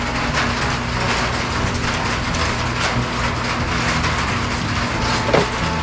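Cordless reciprocating saw running steadily as it cuts through wood at the bottom of a framed wall opening.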